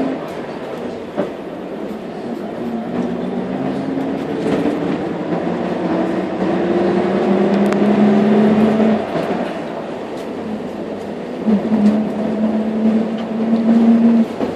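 Jelcz PR110 CNG city bus heard from the passenger cabin: a drivetrain whine over the running rumble climbs steadily in pitch as the bus gathers speed, drops away about nine seconds in, then comes back as a steady whine near the end.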